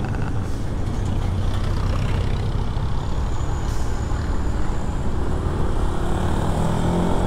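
Steady engine and road rumble of vehicles driving at speed on a highway. Near the end a low engine note comes up and starts to climb as the throttle opens.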